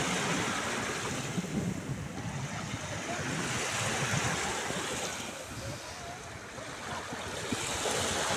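Small sea waves lapping and breaking at the shoreline, swelling and easing, quieter about two-thirds through and rising again near the end. Wind buffets the microphone underneath.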